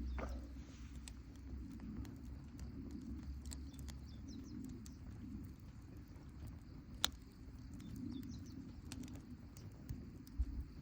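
Campfire burning quietly, with sparse sharp crackles and pops, the loudest about seven seconds in.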